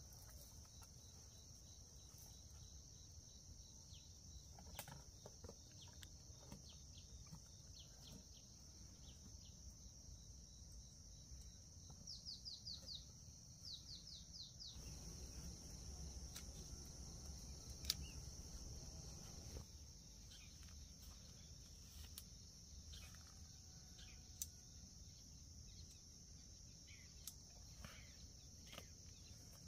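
Faint outdoor ambience of a steady, high insect drone, with a bird giving two quick runs of chirps near the middle. A few faint clicks, and one sharp tick.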